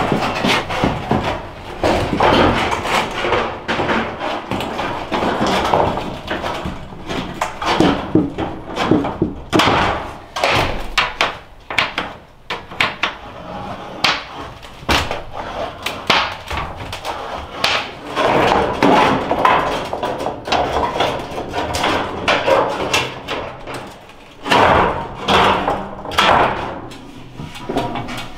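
Tin snips biting through a corrugated galvanized steel sheet, and the thin sheet metal rattling, flexing and clattering as it is handled, with many irregular sharp knocks and thumps.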